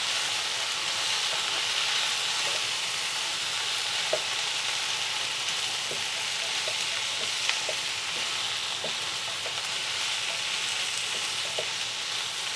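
Chopped vegetables and dry spice powders sizzling in oil in a non-stick pan while being stirred with a wooden spatula: the masala being roasted with the vegetables. A steady hiss, with scattered light taps of the spatula.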